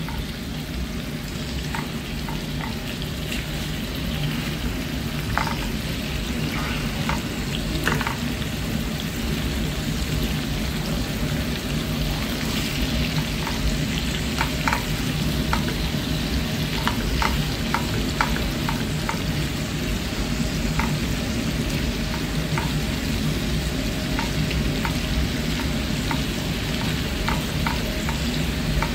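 Prawns shallow-frying in coconut oil make a steady sizzle with scattered sharp pops and clicks. A slotted spatula turns them over, tapping and scraping in the pan.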